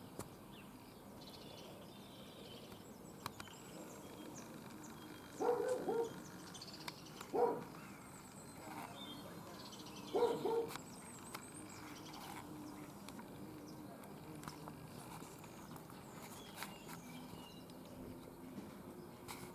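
Three short pitched animal calls, the first and last doubled, over faint high chirping.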